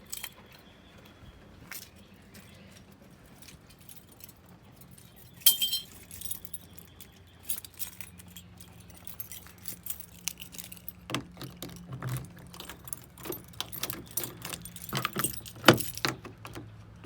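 Keys jangling and clicking in irregular rattles, with a sharp knock about five seconds in and another near the end. A faint low steady engine hum runs underneath, firming up from about eight seconds in.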